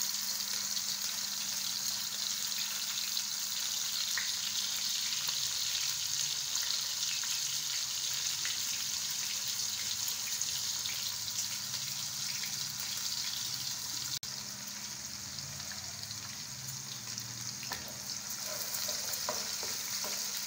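Chopped onions sizzling steadily in hot oil in a kadhai. Near the end a wooden spatula stirs them, adding a few faint scrapes.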